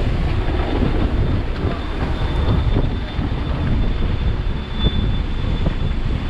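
Storm wind buffeting the microphone in a steady low rumble, with a faint steady high whine underneath.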